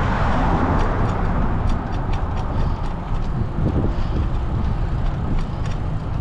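City street traffic passing a moving bicycle, with a vehicle swelling past near the start and fading. Under it runs a steady low rumble, with scattered light ticks and rattles.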